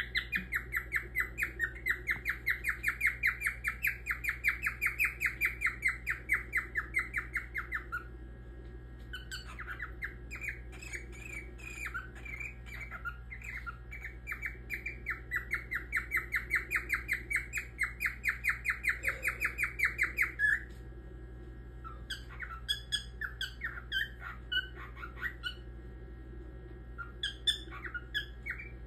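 Grey cockatiel calling: two long runs of short, quick, repeated chirping notes at about four a second, with scattered single chirps between them and a short burst near the end.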